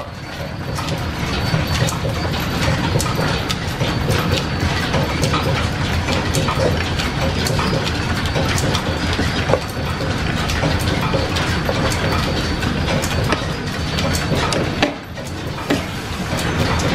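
Steam-driven overhead line shaft, pulleys and flat leather belts running a small South Bend lathe: a steady mechanical rumble with a dense clatter of small clicks, dipping briefly about fifteen seconds in.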